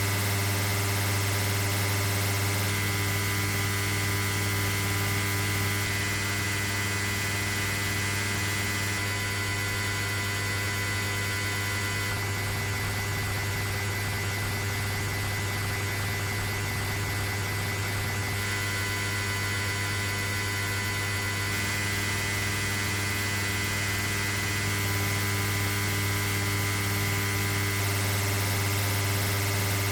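A steady low machine hum with a thin high whine above it, unchanging throughout.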